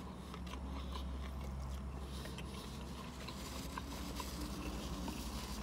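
Quiet eating sounds: faint chewing and scattered small clicks of a paper napkin being handled, over a steady low hum in a car cabin.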